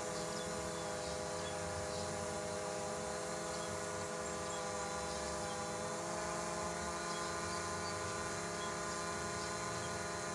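Camera quadcopter drone hovering in the air, its propellers giving a steady multi-toned hum that holds the same pitch throughout.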